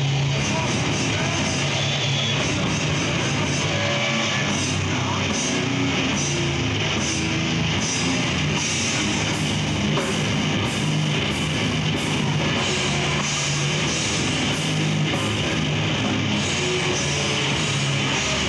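A death metal band playing live: distorted electric guitars and a drum kit in a dense, loud, unbroken wall of sound, heard from within the club audience.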